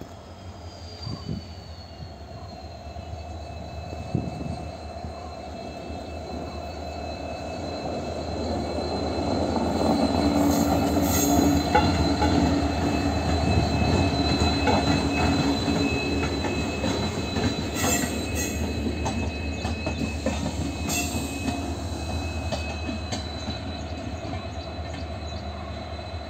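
Indian Railways diesel locomotive hauling a single LHB end-on-generator coach slowly past at close range. The engine drones steadily under a thin, high, steady wheel squeal, with occasional clicks of wheels over rail joints. It grows louder to a peak about halfway through as it passes, then eases off.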